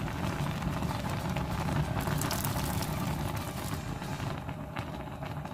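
Thick ground-soybean stew boiling hard in a pot, bubbling and popping over a steady low rumble.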